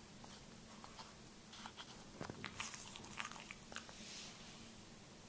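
A sleeping Boston terrier smacking its lips and working its jaw, a run of small, faint wet clicks that come thickest in the middle.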